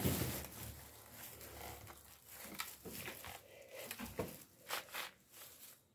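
Cloth rustling right against the microphone, with a handful of light knocks and scrapes as something is pushed and fitted into place by hand.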